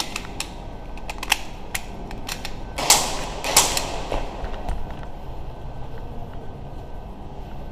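Airsoft gunfire and BB hits: scattered sharp clicks and snaps, then two louder cracks about three seconds in.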